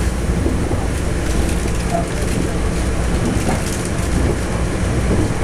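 Steady low running rumble of a Taroko Express TEMU1000 tilting electric train at speed, heard from inside the passenger car: wheels on rail and body noise.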